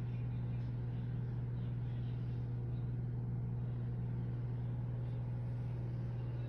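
A steady low-pitched hum that keeps an even level throughout.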